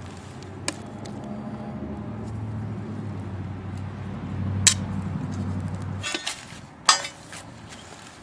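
Sharp metal knocks and clinks as the parts of a sump pump are struck and worked apart with hand tools, one louder hit near the end ringing briefly. A low steady hum runs underneath and stops about six seconds in.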